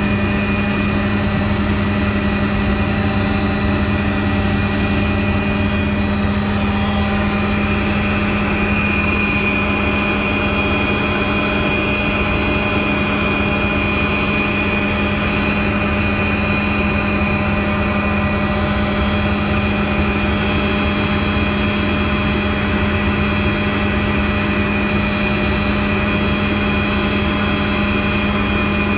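Helicopter in flight: steady engine and rotor noise, a constant low hum with several steady higher whines above it.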